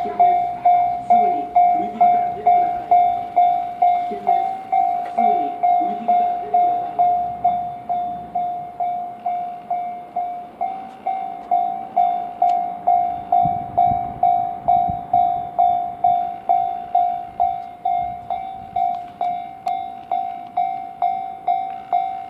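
Japanese level-crossing warning bell ringing steadily, a little under two dings a second. A train passes with a low rumble about two-thirds of the way through.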